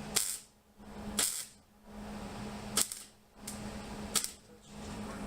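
Four short welding tacks, each a brief sharp crackle, about a second or more apart, as steel straps are tacked to the car's body.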